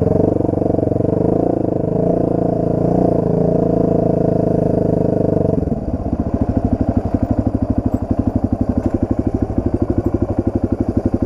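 Dirt bike engine running under throttle at steady revs, then about halfway through dropping back to a low, pulsing putter as the throttle comes off.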